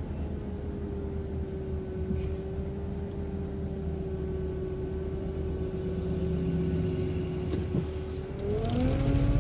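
City transit bus idling, a steady hum with a steady whine over it; near the end the engine note rises as the bus begins to pull away.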